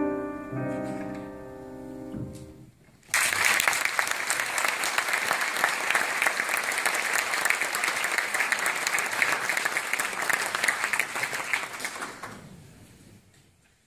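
Grand piano playing the last chords of a song, which ring out and die away. About three seconds in, an audience breaks suddenly into steady applause, which fades away near the end.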